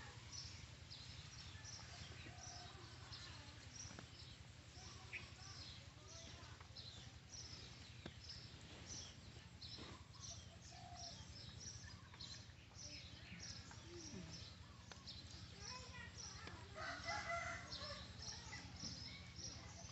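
Small birds chirping steadily in the background, with a rooster crowing once near the end.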